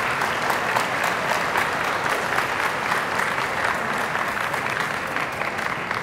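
Audience applauding steadily, many hand claps blending together.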